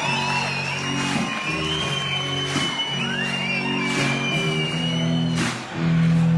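Live rock band playing the song's instrumental intro: guitar chords that change every second or so, with shouts from the audience over the music.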